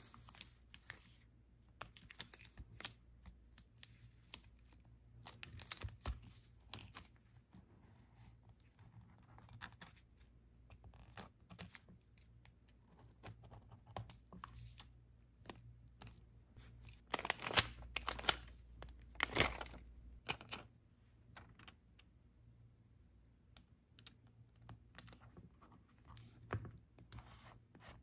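Paper being handled and torn while a journal page is put together: scattered small taps, rustles and crinkles, with a louder spell of paper noise about two-thirds of the way through.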